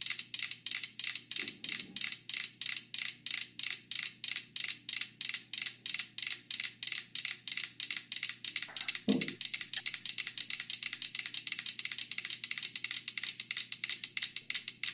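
Five mechanical metronomes ticking on a shared board that rests on two cans, about four to five clicks a second, the metronomes coupling through the board and falling into step. A short falling sound about nine seconds in.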